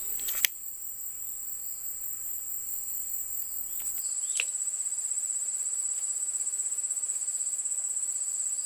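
Steady high-pitched trilling of an insect chorus, with a sharp click about half a second in.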